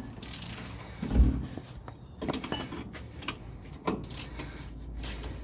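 Hand tools clinking and knocking on metal while a rear shock absorber's mounting is worked loose: scattered short metallic clicks, with a heavier thump about a second in.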